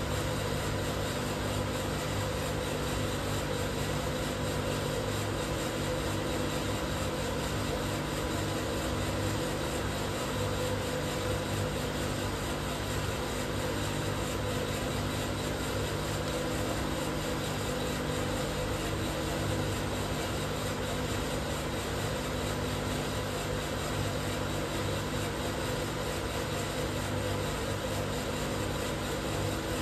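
12 kg Probat Probatone P12 Series 2 coffee roaster running steadily mid-roast: a constant mechanical hum with several steady tones over an even rushing noise.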